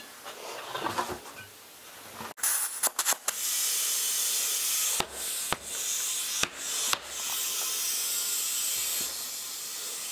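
Compressed air hissing steadily through an air chuck into a truck tire on a split rim, inflating it to seat the bead, after a couple of seconds of quiet handling noise. Several sharp clicks and brief breaks interrupt the hiss.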